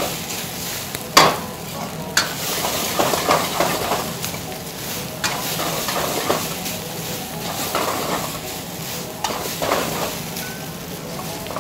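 Vegetable fried rice sizzling in a hot wok while a metal ladle stirs and turns it, scraping across the pan, with a few sharp knocks of the ladle against the wok.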